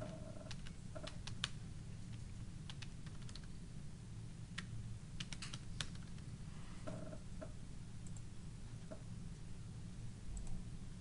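Computer keyboard keys tapped in short irregular bursts as numbers are entered, over a low steady hum.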